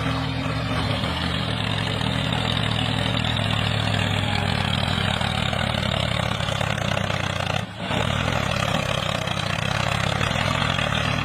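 Truck engine running steadily at idle, with a brief dropout about two-thirds of the way through.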